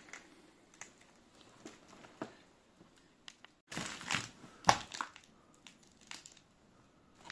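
Old paper and debris crunching and crinkling: scattered soft crackles, then a louder stretch of crunching about four seconds in, with its sharpest crunch near five seconds.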